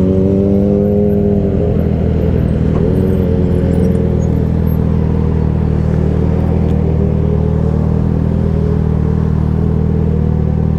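Yamaha XJ6's 600 cc inline-four engine running at low revs. The note drops about two seconds in as the motorcycle slows to a stop, then it idles steadily.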